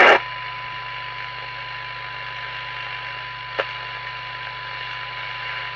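Steady 1 kHz test tone from a signal generator, demodulated by an FM CB receiver and heard through a monitor loudspeaker over hiss and mains hum, while the receiver's transformer 2 is being aligned. One short click comes about three and a half seconds in.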